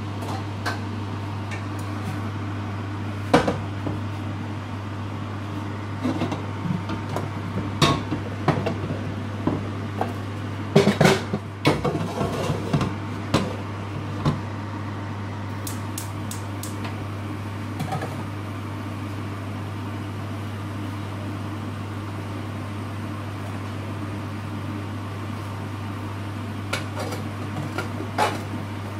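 A steady low electrical hum runs throughout, with scattered clicks, knocks and a brief clatter of crockery and utensils being handled in a kitchen, busiest about eleven seconds in.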